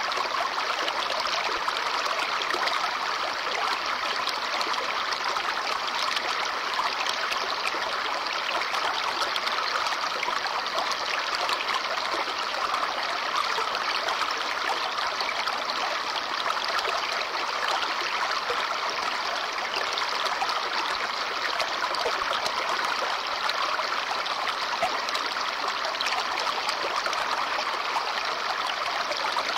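A small brook babbling and trickling over stones, a steady rush of running water with no change.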